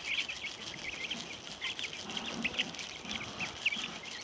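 A flock of young white chickens peeping while they feed: many short, high chirps overlapping one another without a break.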